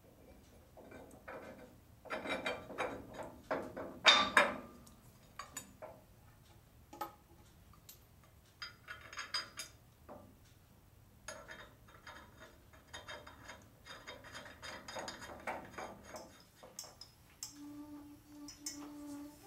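Steel hand tools and hardware clinking, with runs of quick clicking, in several bursts as nuts are run down on the U-bolts clamping the rear axle to the trailing arms; the nuts are being snugged, not yet torqued. A brief low hum comes near the end.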